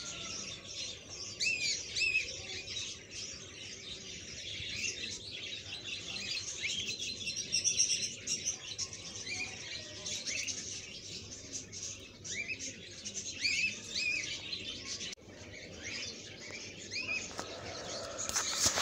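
Sliced onions sizzling and crackling in hot frying oil in a pan, with birds chirping repeatedly over the sizzle. A louder burst of noise comes near the end.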